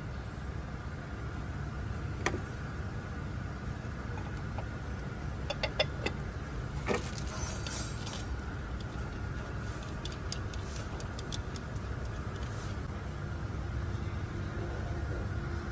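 Small metal engine parts and tools clinking and tapping as they are handled, in scattered clicks with a few quick clusters, over a steady low hum.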